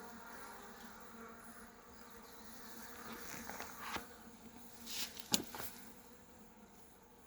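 Honeybee colony buzzing as a steady hum from the opened hive. A few sharp clicks and scrapes break in between about three and five and a half seconds in, the loudest just past five seconds.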